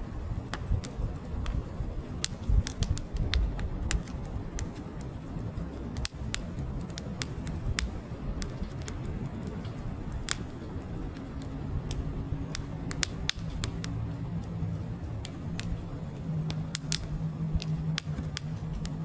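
Wood fire burning: split logs crackling and popping with irregular sharp snaps, over the low rush of the flames.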